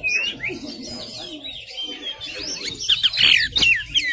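Oriental magpie-robin singing a fast, varied song of quick whistles and chirps that sweep up and down in pitch.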